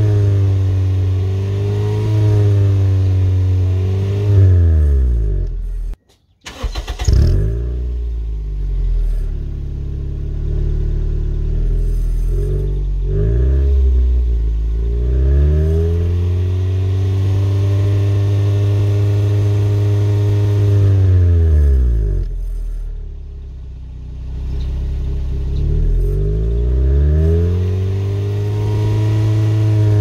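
Car engine revved repeatedly while it stands, with clip-on whistle inserts in the exhaust tailpipe sounding a turbo-like tone that rises, holds and falls with the revs. The sound cuts out briefly about six seconds in.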